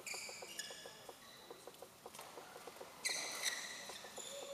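Sports shoes squeaking on a badminton court mat as players move: a high-pitched squeak at the start and a louder, sharper one about three seconds in, with light footfalls and scuffs in between.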